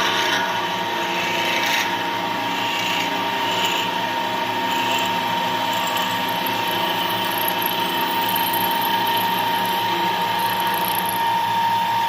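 Small metal lathe running, with a steady whine and a gear-train whir, while a cutter in the tailstock is fed slowly into an aluminum workpiece.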